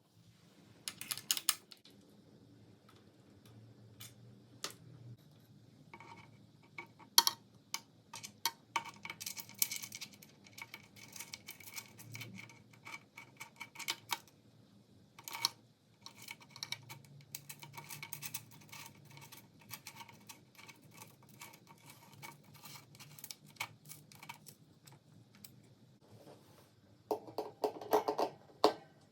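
Irregular clicks, taps and light metallic clinks of bicycle parts and tools being handled, with a denser run of knocks near the end.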